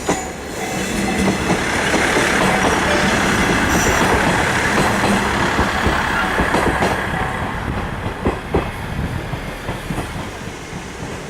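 A Koumi Line railcar passing over a level crossing, its wheels clattering over the rail joints. The sound is loudest about two to six seconds in, then eases, with a few sharp wheel clacks near eight seconds. The crossing's warning bell is still ringing at the very start.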